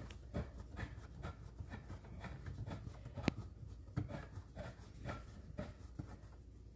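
Hand tools unscrewing a threaded fitting on a copper water supply line: light, irregular metal clicks and scrapes, the sharpest about three seconds in.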